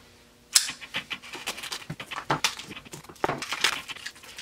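Tape being peeled and picked off the end of a cardboard mailing tube: a string of short rasping, scratching strokes, with a sharp click about half a second in.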